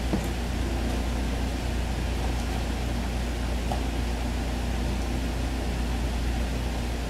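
Steady low hum and hiss of background room noise, with a faint tap just after the start as the paper fries carton is handled.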